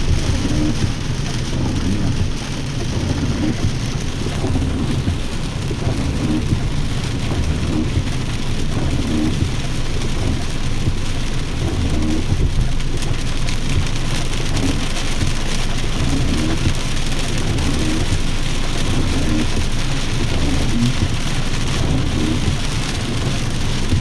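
Heavy rain falling steadily, with a strong low rumble underneath.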